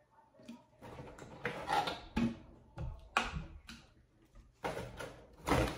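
Plastic food-container lids handled and knocked together: a series of irregular short clatters and rustles, loudest near the end.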